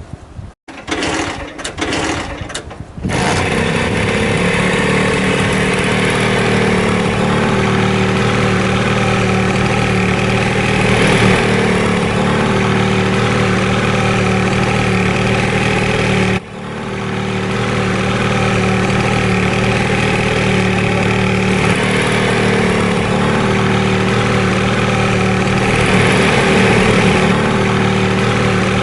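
Vespa scooter engine, heard in a few short broken bursts in the first three seconds, then running steadily at an even pitch. About halfway through the sound drops sharply for a moment and then picks back up.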